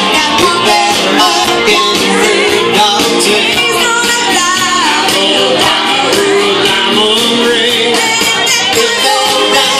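Karaoke duet: a woman and a man singing into microphones over a recorded backing track.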